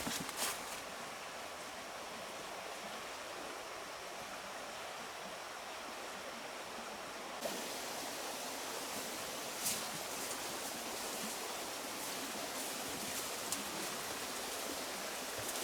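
Steady outdoor rushing noise with no clear pitch. It jumps a little louder and brighter about seven seconds in, and a few faint ticks stand out over it.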